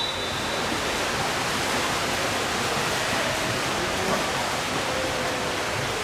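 Several water polo players swimming front crawl: a continuous, even splashing of water that echoes in an indoor pool hall.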